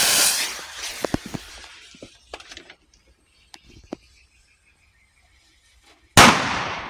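A firecracker fuse catches with a loud hiss that fades over a couple of seconds, then burns down faintly. About six seconds in, the Black Beauty tube cracker goes off with a single sharp, loud bang whose echo trails off.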